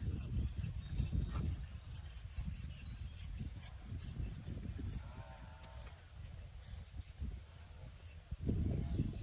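Irregular rubbing and scraping with a low rumble, with small birds chirping around the middle.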